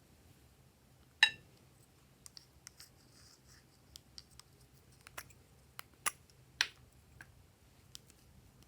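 Glossy slime being pressed and stretched by hand, giving scattered sticky clicks and pops. One louder click with a short ring comes about a second in, and a few sharper ones follow later.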